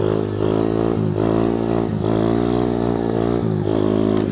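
Honda 125 motorcycle engine revving hard during a wheelie; the engine note rises, then drops sharply about three times as the throttle is worked.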